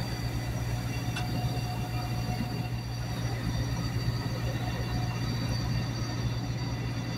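Sailboat's engine running steadily under way, a continuous low drone with a fast, even throb, over a haze of wind and water noise.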